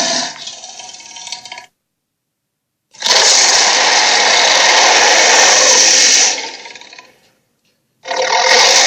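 Sound effects for the Tigorilla, an invented tiger-gorilla creature: separate harsh, noisy calls with short silences between. One fades out early, a loud one lasts about three seconds before fading, and another starts near the end.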